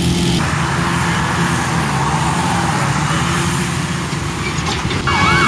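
Steady engine hum mixed with road traffic. About five seconds in a siren starts up, its pitch sweeping rapidly up and down.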